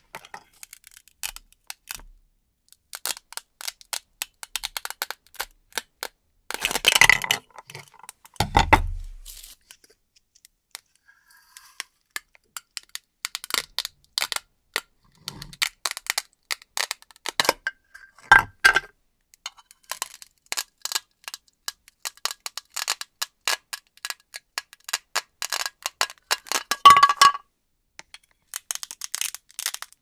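Velcro on toy play-food fruit being torn apart as a knife slices the pieces apart or knocks them off a velcro disc: a run of short crackly rips and clicks in separate bursts, with one low thump about eight seconds in.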